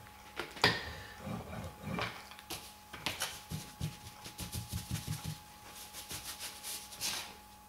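A cloth rubbing and wiping over a plate-glass sheet laid with wet abrasive film, in a run of short strokes. A sharp knock comes about half a second in, and a few lighter knocks follow.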